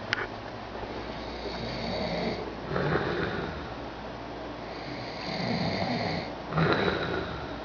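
A sleeping person snoring: two breaths, each a drawn-out snore followed by a shorter, louder one, about every three and a half seconds. A short click right at the start.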